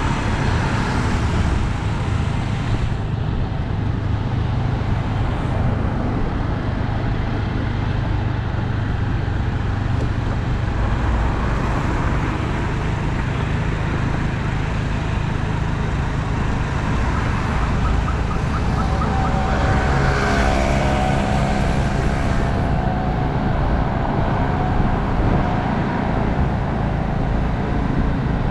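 Steady road and engine noise of a car driving through busy city traffic. Partway through, a pitched sound with several tones sounds for a few seconds over the traffic.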